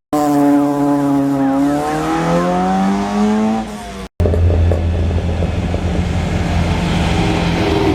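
Hillclimb race car engines. One car's engine note drops and then climbs again as it comes off and back onto the throttle. After a sudden cut, a lower, steady engine drone follows.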